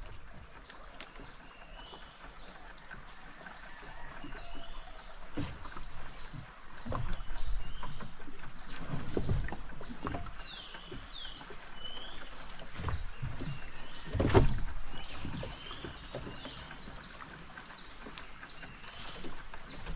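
Small birds chirping over and over in the riverside trees, with scattered knocks and rustles as a man shifts about in a small boat and works in the overhanging branches; the loudest knock comes about fourteen seconds in.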